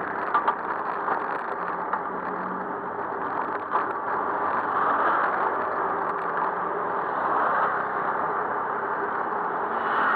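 Steady road traffic noise heard from a moving bicycle. There are two sharp rattles about half a second in and another just before four seconds, typical of the bike jolting over the road surface.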